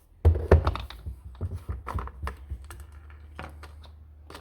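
A quick, irregular run of plastic clicks and knocks from handling a battery chainsaw and a bottle of bar oil while the oil reservoir is opened for filling. The clicks are densest in the first two seconds, then thin out over a faint, steady low hum.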